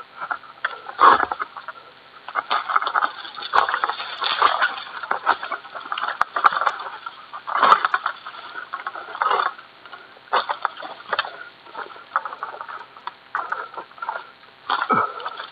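Dry oil palm fronds and undergrowth crackling and rustling in quick, irregular bursts, with louder cracks at intervals and a low thud about a second in and again near the end.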